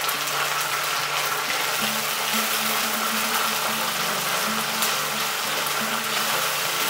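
Onions and garlic paste sizzling as they fry in hot oil in a kadhai.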